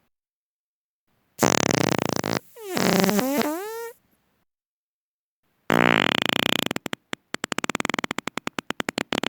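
Three human farts one after another. The first is a short buzzy one and the second wavers in pitch, dipping and rising. The last is longer and starts as a steady buzz, then breaks into a rapid sputter.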